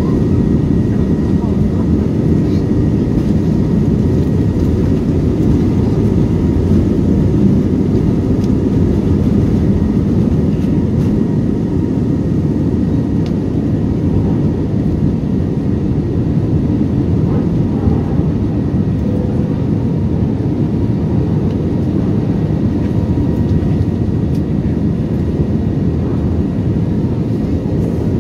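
Airliner's jet engines at takeoff power heard from inside the passenger cabin: a loud, steady deep noise with a faint steady whine, through the takeoff roll, liftoff and initial climb.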